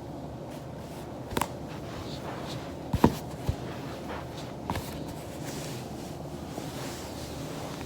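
Back cracking on a foam roller: a few sharp pops from the spine, the loudest a quick double crack about three seconds in, over a steady low room hum.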